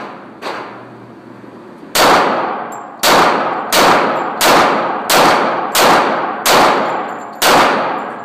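A string of eight handgun shots fired at a steady pace, about one every three-quarters of a second, each a sharp report with a ringing tail; a fainter shot comes shortly before them.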